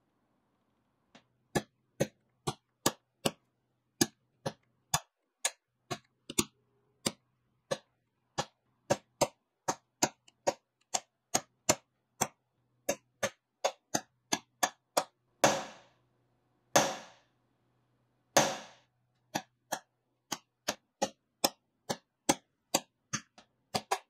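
Sharp, separate taps about two a second as a ground-down nail punch is struck on a brass plate to stipple the background of etched artwork. About two-thirds in, three louder hits ring on briefly.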